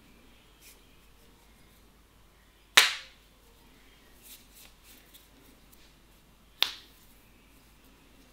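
Two loud, sharp hand slaps about four seconds apart, each with a short ringing tail, during an Indian head massage, with a few faint small clicks between them.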